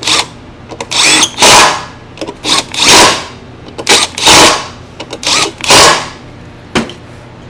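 Cordless impact driver running down the fan bolts on a RedMax backpack blower engine in a string of short bursts, one bolt after another.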